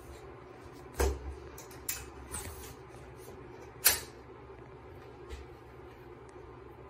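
Aluminium leg tubes of a tub transfer bench being handled and slid together by hand: a few light clicks and knocks, with one sharper click about four seconds in.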